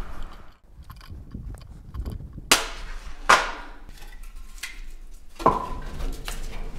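Split firewood being loaded into a cast-iron parlor stove: three sharp knocks of wood against the stove, the last with a short metallic ring.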